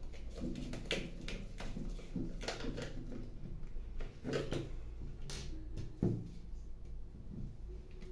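Irregular clicks, knocks and scrapes of a plastic toner-cartridge drum unit being handled while a screwdriver works a screw at its end.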